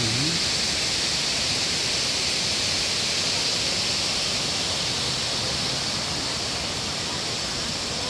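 Steady rushing of water pouring over the small cascades of a waterfall into the pools, an even hiss with no breaks.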